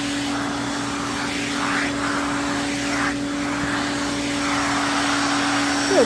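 Vacuum cleaner running steadily with a pet-grooming brush attachment: a constant drone with one held tone under a rushing hiss.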